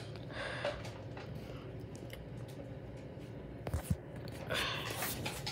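Handheld phone being moved and brushed against a fabric cushion or blanket: soft rustling with a couple of low bumps a little before four seconds in.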